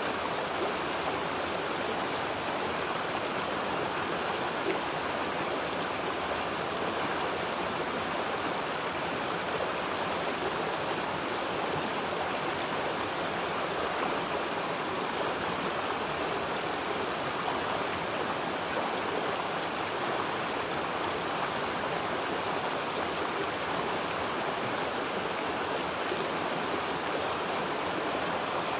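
Flowing water, such as a stream, rushing steadily and evenly without a break.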